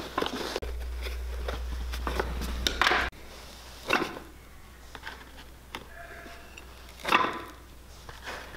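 Leather sole of a Lucchese cowboy boot being pried and pulled away from the welt by hand and with pliers. It gives short scraping, tearing sounds several times, loudest about three seconds in and again about seven seconds in. A low hum runs through the first three seconds and cuts off suddenly.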